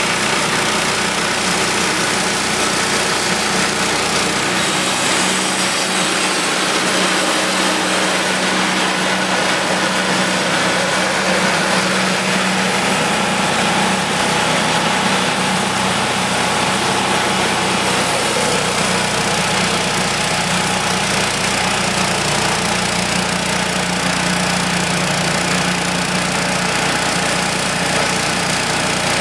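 Wood-Mizer LT10 band sawmill running steadily under load, its engine driving the band blade through a sweet gum log as it slabs off a board.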